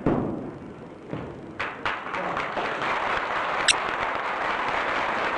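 A few heavy thuds from the performers' stamps and strikes on the carpeted floor, then an audience breaking into applause about two seconds in, which carries on steadily. A brief high-pitched squeak cuts through the clapping near the middle.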